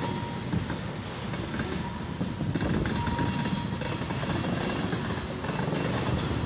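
Last tank car of a long CSX mixed freight train rolling past at a grade crossing: a steady rumble and clatter of steel wheels on the rails.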